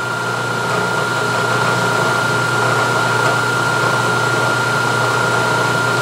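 Vertical milling machine running with its spindle turning: a steady motor and drive hum with a constant high whine.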